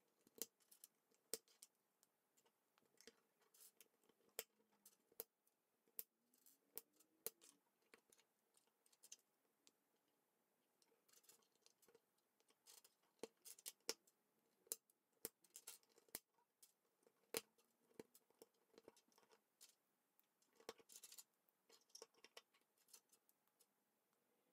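K'NEX plastic rods and connectors being pressed and snapped together by hand: faint, irregular clicks and snaps, some coming in quick runs.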